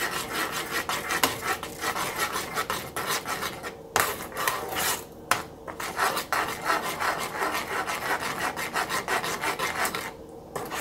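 A metal spoon scraping round a small saucepan while stirring thick barbecue sauce, in repeated scraping strokes with a short pause near the end.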